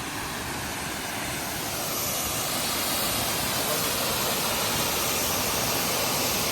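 Waterfall rushing: a steady, even noise that grows a little louder about two seconds in.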